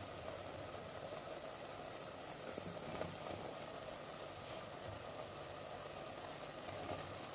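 Vegetables stewing gently in a pot on low heat: a faint, steady sizzle with a few small crackles.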